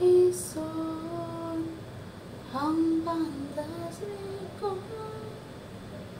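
A woman singing a slow tune to herself without clear words: a long held note in the first two seconds, then a phrase of shorter notes.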